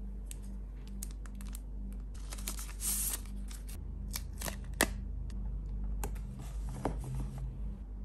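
A paper sticker sheet being handled and rustling, with small scattered clicks and ticks as tweezers pick stickers off it. There is a brief crinkly rustle about three seconds in and a sharper click a little under five seconds in.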